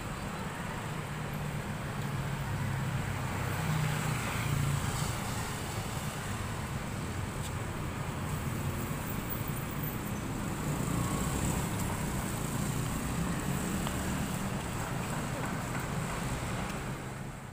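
Light city street traffic: cars and motorcycles running past a junction over a steady low rumble of traffic, fading out at the very end.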